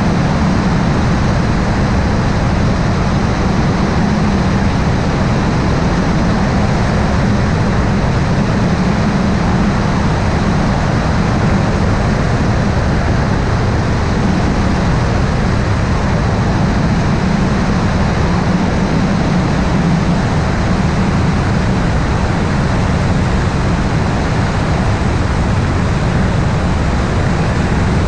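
Helicopter running steadily: constant loud engine and rotor noise, heaviest in the low end.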